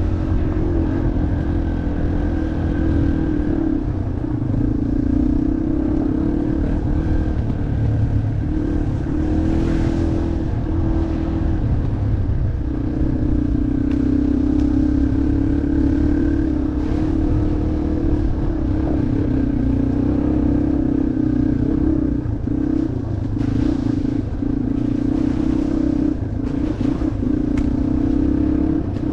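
Yamaha off-road motorcycle engine running while the bike is ridden. The engine note holds mostly steady and drops briefly a few times, as when the throttle is eased and opened again.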